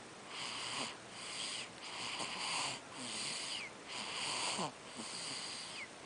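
Young child snoring in sleep: quick, raspy, hissing breaths, about one a second.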